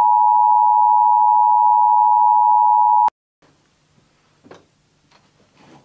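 Emergency broadcast alert tone: a loud, steady electronic tone that cuts off suddenly about three seconds in. It is followed by quiet room tone with a low hum and a few faint knocks and rustles.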